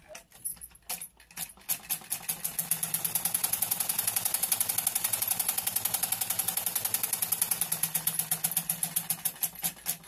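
Usha sewing machine stitching: a rapid, even clatter of the needle and feed mechanism that picks up speed over the first couple of seconds and slows near the end. The feed dogs have just been raised back up after being pressed down, so the cloth now feeds fast.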